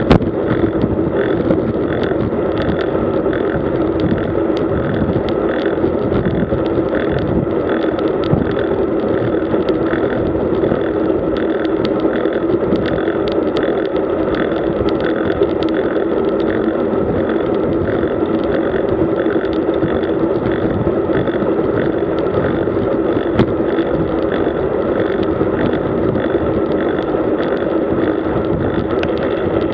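Steady rush of wind over the microphone and tyre noise from a road bike riding at speed, with a light regular tick about twice a second.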